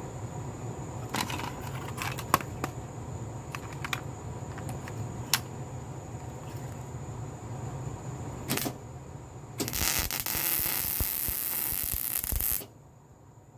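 Arc welding: a few short crackling tacks and clicks over a steady low hum. About ten seconds in, a steady sizzling weld bead runs for about three seconds and then stops abruptly.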